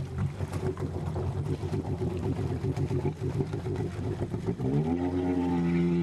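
Jet ski engine running unevenly, with choppy knocking and buffeting. About four and a half seconds in it revs up, its pitch rising and then holding a steady higher note.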